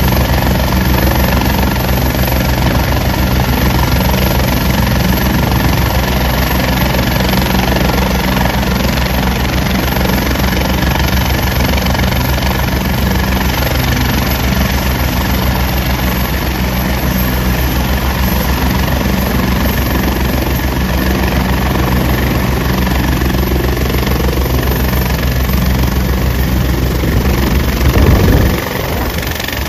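A turbine helicopter running on the ground with its rotor turning, a steady loud whine and rotor noise. About two seconds before the end the sound swells and then drops and changes as the helicopter lifts off.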